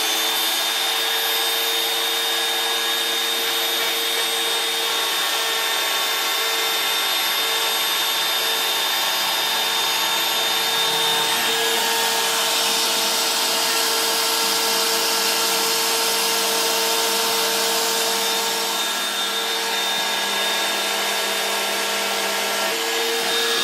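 CNC router's trim-router spindle running at speed while its bit cuts a shallow groove, about 3 mm deep, in PVC lumber: a steady high whine over the rasp of the cut.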